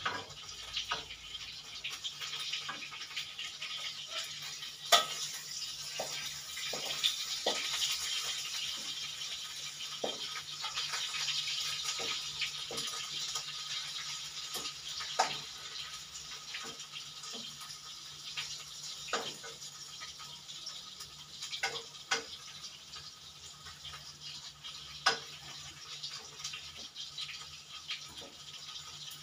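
Food sizzling in hot oil in a pan, a steady hiss. A metal spatula knocks and scrapes against the pan about a dozen times, the sharpest knock about five seconds in.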